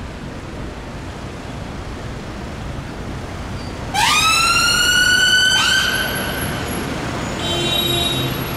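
Emergency ambulance siren sounding over street traffic: two loud whoops about four and five and a half seconds in, each rising quickly and then holding. A brief, different tone follows about a second later.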